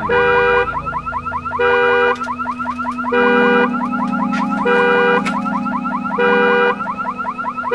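Car alarm going off: a fast warbling chirp that runs on without a break, with a steady tone cutting in about every one and a half seconds. A low steady hum sits underneath and grows louder about three seconds in.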